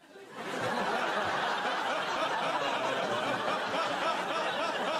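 Studio audience laughing: a dense crowd laugh that swells up within the first half second and holds steady.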